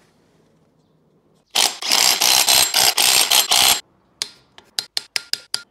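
Ratchet wrench run in fast: a dense burst of clicking starts about a second and a half in and lasts about two seconds, then comes a string of separate sharp clicks that come faster toward the end, as the flywheel bolts are done up.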